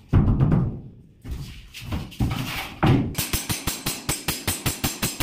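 Heavy thuds as a plywood door is knocked and pressed into its frame, then, about three seconds in, a quick even run of hammer taps, about five a second.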